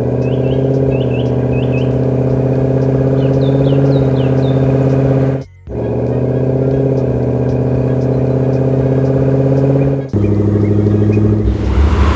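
Vehicle engine running at a steady idle with an even hum. It cuts out for a moment about five and a half seconds in, then resumes, and changes slightly just after ten seconds. Faint short high chirps sound over it in the first few seconds.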